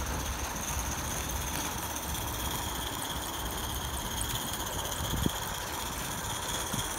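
Accucraft Dolgoch 16mm-scale live-steam locomotive running on the track, a steady hiss of steam over a low rumble, with a couple of sharp clicks near the end.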